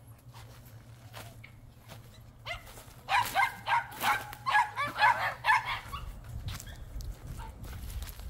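Dog barking in a quick run of about a dozen short barks, starting about two and a half seconds in and lasting about three seconds.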